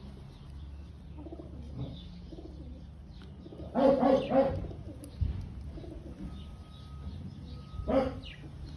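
Domestic hens making soft, low clucks and murmurs, with a louder run of about three clucks about four seconds in and another single cluck near the end.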